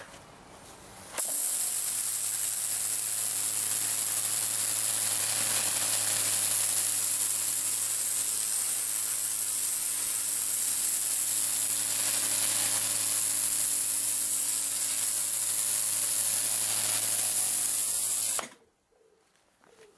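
Kärcher K3.550 electric pressure washer running under pressure, its rotating dirt-blaster jet hissing hard against a stone patio slab over the steady hum of the motor and pump. It starts suddenly about a second in as the trigger is pulled and cuts off abruptly near the end when it is released.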